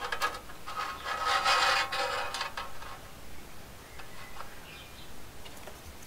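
A knife scraping Nutella onto a piece of bread: one rubbing scrape lasting about two seconds, then fainter handling sounds.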